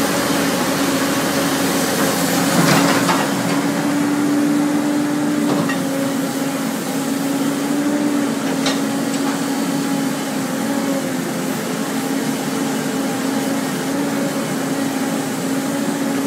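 Cat 320C L hydraulic excavator running steadily while it digs, a constant engine drone with the noise of the hydraulics over it. A few sharp clanks cut through, the loudest about two and a half seconds in.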